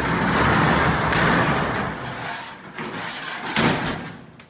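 Corrugated metal roll-up door of a storage unit being rolled open: a long, loud rattle of the steel slats, with a sharp knock about three and a half seconds in before it dies away.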